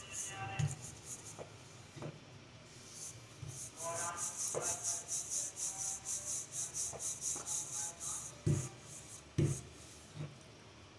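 Wooden rolling pin rolling dough out on a floured marble counter: a quick, rhythmic rubbing, one stroke after another, that pauses briefly early on and then runs steadily for several seconds. Two dull knocks follow near the end.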